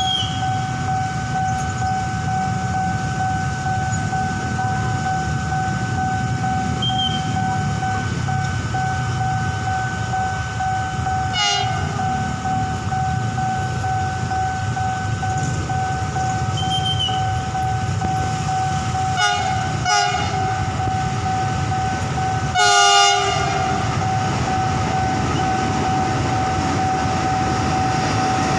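Level crossing warning alarm sounding a steady two-pitch tone over low traffic rumble. Four short horn blasts from the approaching CC 300 diesel locomotive cut across it, the last and loudest about three quarters of the way through.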